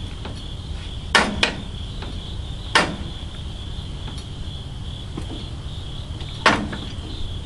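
Four sharp knocks, a pair about a second in, one near three seconds and one about six and a half seconds in, over the steady high chirring of insects and a low steady hum.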